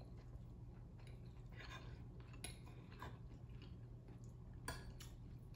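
Faint eating sounds from a person chewing food close to the microphone, with a few short, soft clicks, the sharpest one near the end.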